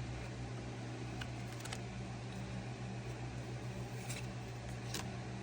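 Trading cards being handled and flipped: a few short, sharp clicks and snaps, about four spread over the few seconds, over a steady low hum.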